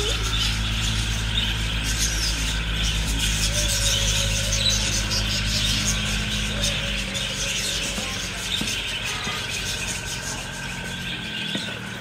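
A flock of budgerigars chattering and chirping without a break, over a steady low machine hum that drops away about seven seconds in.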